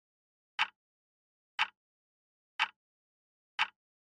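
Quiz countdown timer ticking, four short sharp ticks about one a second with silence between them.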